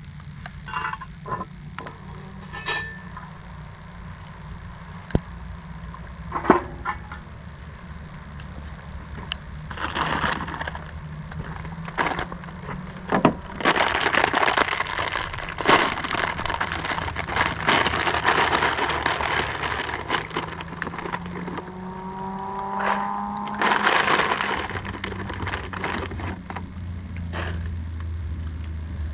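Sharp metal clinks as a cast-iron Dutch oven lid is lifted with a lid lifter. Then a plastic bag of dry pasta crinkles loudly in repeated bursts as it is handled and poured into the pot.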